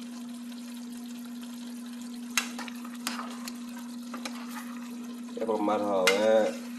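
Eggplant and tomato stew sizzling in a nonstick saucepan while a spoon stirs it, with a few sharp clicks of the spoon against the pan, over a steady low hum. A voice is heard briefly near the end.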